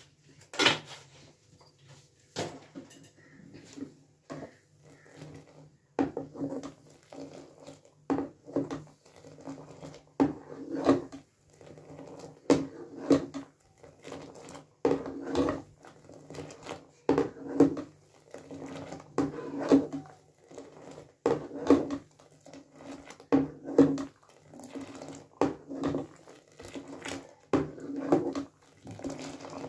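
Steel ladle scooping hot milk tea from a steel pot and pouring it back, over and over, about once every one to two seconds: the ladle clinks against the pot and the tea splashes back in. This aerates and froths the chai as it simmers.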